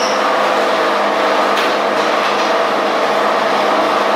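Homemade dowel-making machine running under load: its two electric motors hum steadily while the cutter head shaves a wooden stick round as the gearbox feed pulls it through. A couple of faint clicks sound in the middle.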